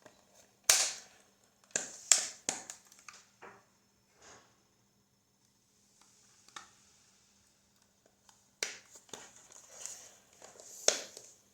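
Plastic multimeter case being handled and pressed shut, its back cover clicking and knocking against the body in a series of sharp clicks, with a quiet spell in the middle.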